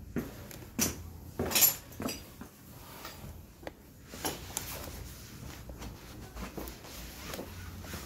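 Metal clinks and knocks of hand tools and the steel front axle being handled at a motorcycle's front wheel hub: several sharp knocks in the first couple of seconds, the loudest about one and a half seconds in, then lighter ticks and clicks.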